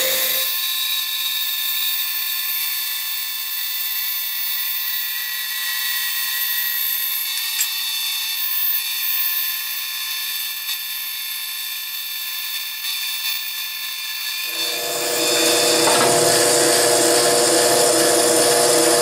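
Bandsaw running and cutting a curved arch out of a wooden board, a steady machine whine with the blade in the wood. From about half a second in the low hum drops away, leaving a thinner whine, and the fuller sound returns about fourteen seconds in.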